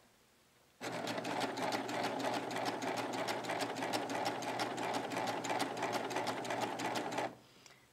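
Baby Lock Triumph serger sewing a narrow cover stitch, starting about a second in and stopping near the end, with a steady hum and an even, rapid ticking of the needles. It is stitching the knit binding strip alone through the bias binder attachment to start a chain of stitches.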